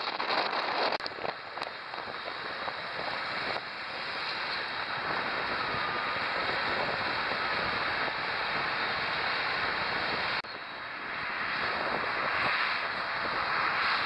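Steady rush of wind and road noise from a moving car, broken off and resumed abruptly twice.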